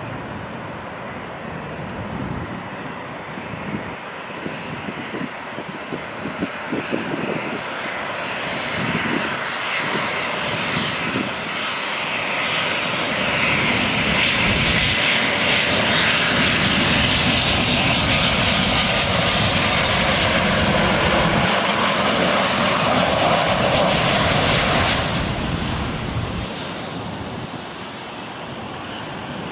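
Jet engines of a Boeing 737-700 airliner on final approach, the roar and hiss growing steadily louder as it nears. About 25 seconds in the sound drops off suddenly to a quieter engine noise as the jet reaches the runway to land.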